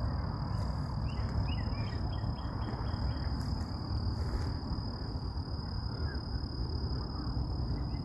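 Low wind rumble on a phone microphone outdoors, with a steady high thin whine. About one and a half seconds in, a bird gives a quick run of five or so short calls.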